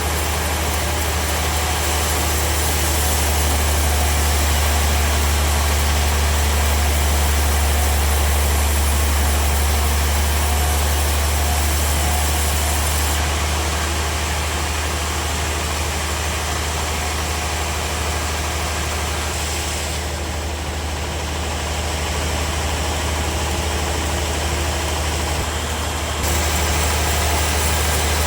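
Sawmill machinery running steadily, with a strong low hum under a broad hiss. The higher hiss thins out for several seconds after the two-thirds mark, then the sound steps up suddenly near the end.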